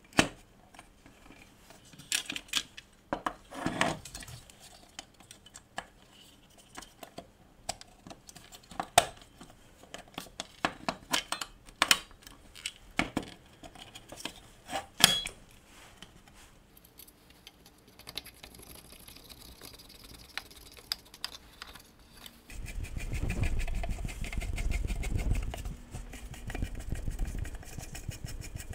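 Light clicks and metallic clinks of a belt sander's aluminium housing and small parts being handled and fitted together by hand. Near the end comes a few seconds of a steadier, low rubbing rumble.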